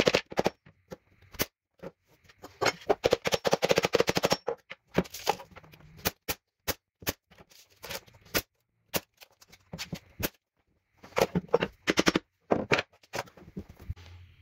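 Sharp clicks and knocks of hand tools working on a wooden stair tread, irregular and sudden, with a dense run of rapid clicks about three seconds in and another cluster near the end.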